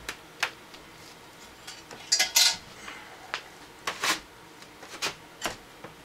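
Scattered light clicks and knocks as a porcelain sink, its faucet valves fitted, is turned over and shifted on a workbench, the loudest cluster just over two seconds in.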